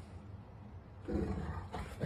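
A dog vocalizing with a low, growl-like grumble that starts about a second in.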